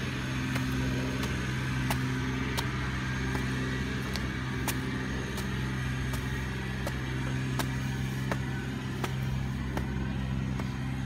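Pressure washer's engine running steadily with a low, even hum, with scattered sharp clicks over it.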